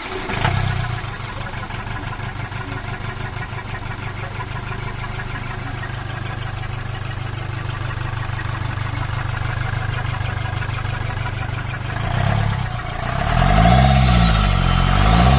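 Chevrolet Colorado 2.8 common-rail diesel engine idling steadily right after starting, then revved up and back down a couple of times near the end.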